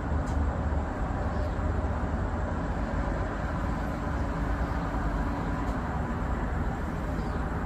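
Pizza vending machine's internal mechanism running: a steady low mechanical rumble with a faint hum.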